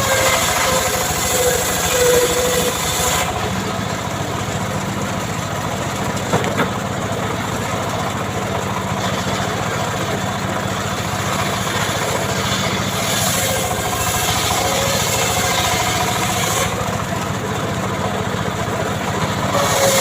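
Homemade chainsaw's small engine running steadily at a fairly constant speed. The higher hiss over it drops away about three seconds in and comes and goes later.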